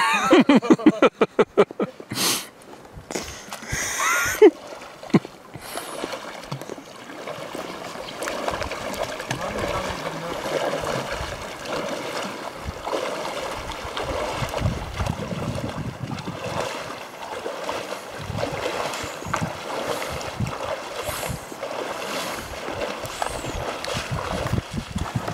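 Legs wading through a shallow river, water splashing and sloshing in uneven bursts with each step as the trekking poles plunge in.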